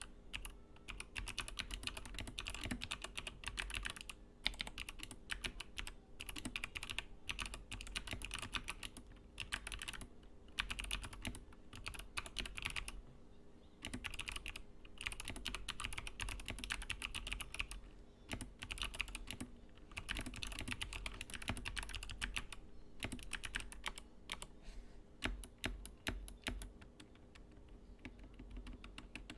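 Typing on a mechanical keyboard fitted with clicky Kailh Box Pale Blue click-bar switches and Kailh Speed Navy thick-click switches: fast runs of crisp key clicks in bursts, with short pauses between them, over a faint steady hum.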